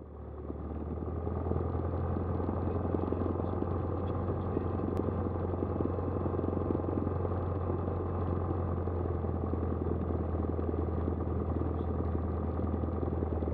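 Cessna 172's piston engine and propeller running steadily at low power, heard from inside the cockpit as an even, low drone. It fades in over the first second or so.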